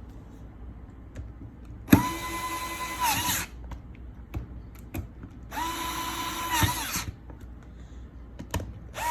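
Small electric screwdriver driving screws into a plastic case, running twice for about a second and a half each with a steady whine, and starting a third run near the end. Each run ends with a brief wobble in pitch. Small clicks of handling come between the runs.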